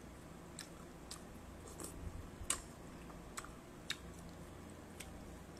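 Faint eating sounds: a person chewing a mouthful of noodle soup, with about seven small scattered clicks spread over the few seconds.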